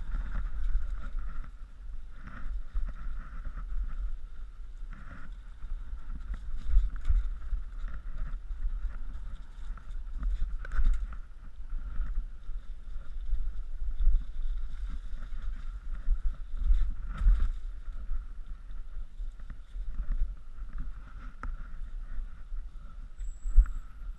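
Wind buffeting a helmet-mounted action camera's microphone on a fast mountain-bike ride over a dirt trail, with irregular knocks and rattles from the bike going over bumps, and a faint steady whine underneath.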